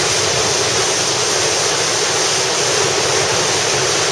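A big swell wave surging into a sea cave: a loud, steady rush of churning whitewater and spray, with seawater pouring back off the rocks.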